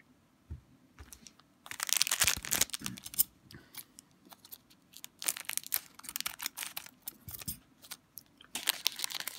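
Wrapper of an Upper Deck Portfolio hockey card pack crinkling and tearing as it is handled and opened. The crinkling comes in a loud burst about two seconds in, then scattered crackles, and another burst near the end.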